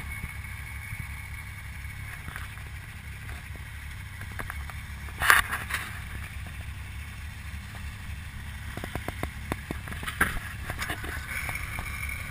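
Group of snowmobiles running at idle and low speed, a steady low engine drone. A sharp knock about five seconds in and a few light clicks later stand out over it.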